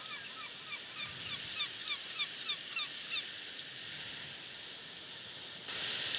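A bird calling in a quick series of short falling notes, about three a second, over a steady rushing noise; a louder rushing hiss cuts in suddenly near the end.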